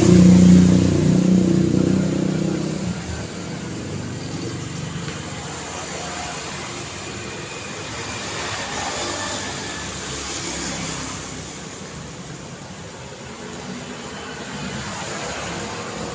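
City road traffic: a motor vehicle's engine passes close and loud in the first three seconds, then fades into a steady wash of cars and tyre noise going by.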